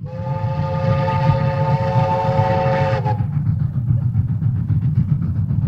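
Diesel locomotive air horn sounding one long chord for about three seconds, then cutting off, over the low rumble of the running locomotive, which continues after the horn stops.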